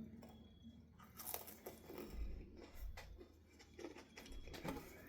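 Faint handling sounds of a card game: rustling, light clicks and a few soft knocks as cards and plastic game pieces are moved and flipped.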